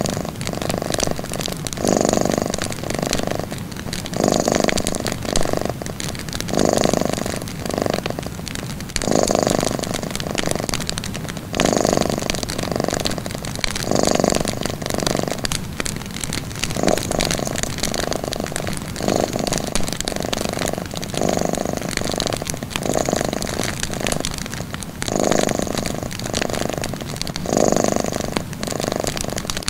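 Domestic cat purring steadily, the purr swelling and fading with each breath about every two seconds or so.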